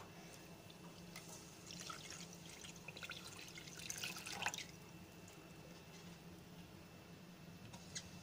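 Water poured from a jug into a stainless steel saucepan of sugar, splashing faintly and irregularly for a few seconds and stopping about four and a half seconds in. A single soft click comes near the end.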